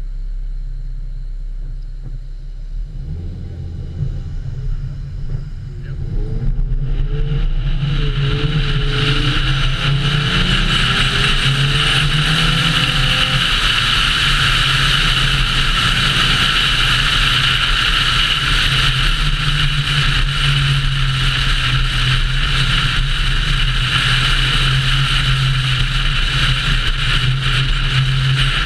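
A car pulls away from a stop and accelerates, its engine note rising in several climbs over roughly the first dozen seconds. From about seven seconds in, a loud steady rush of wind and road noise at speed takes over, with a low engine hum beneath it.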